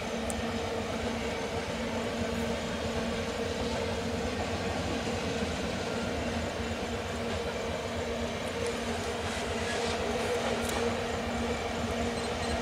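Iron-ore train of GDT wagons rolling past at speed, a steady rumble of wheels on rail with a steady hum running through it, while the SD80ACe helper locomotive pushing at the tail draws nearer.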